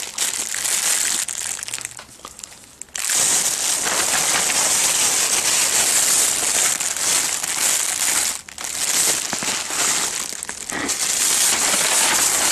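Plastic rubbish bags and food packaging rustling and crinkling as someone rummages through a supermarket waste container. The rustling fades for about a second some two seconds in, then carries on.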